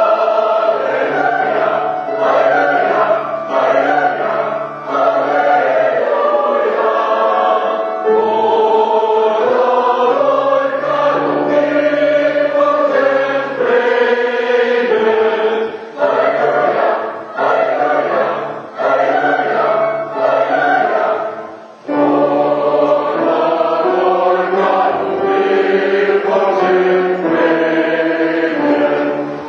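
Background music: a choir singing in sustained chords over a low bass line, in phrases with short breaks between them.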